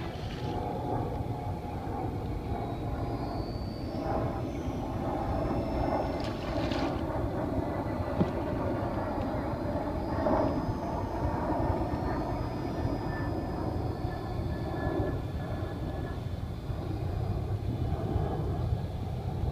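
A steady, distant engine rumble with a faint high whine.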